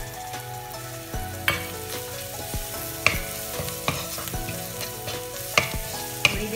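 Chopped onions and spices frying in butter in a non-stick kadhai with a soft sizzle, stirred with a wooden spatula that knocks against the pan several times.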